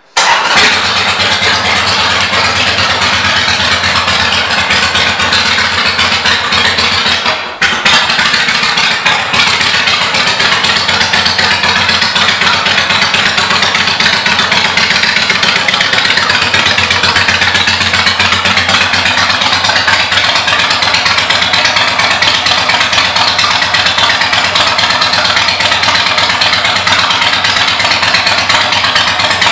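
2005 Harley-Davidson Sportster 883 Custom's air-cooled 883 cc V-twin running at a steady idle through aftermarket exhaust pipes. The sound dips briefly about seven and a half seconds in.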